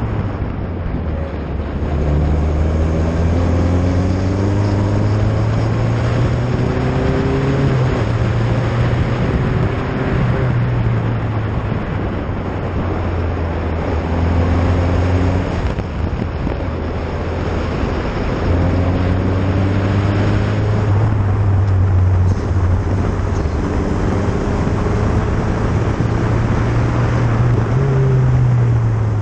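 Single-seater race car's engine heard from onboard, under load at speed, its pitch climbing for a few seconds and then dropping back several times as it shifts through the gears, over heavy wind and tyre noise.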